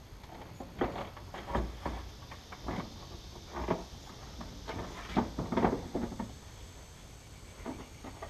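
Irregular knocks, clunks and scraping as a powder-coated steel roll cage is worked into a car's rear seat area against the plastic quarter trim panels. The loudest clunks come in a cluster a little past the middle.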